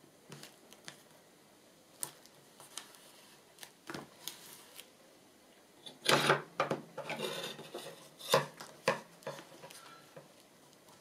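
Paper and card rustling, with scattered light taps and clicks of craft materials being handled and pressed on a tabletop. The rustling is heaviest about six to nine seconds in.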